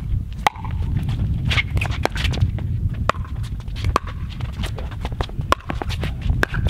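Pickleball rally: a Dura 40 plastic ball struck back and forth with solid paddles, giving sharp pops roughly a second apart. A steady low rumble runs underneath.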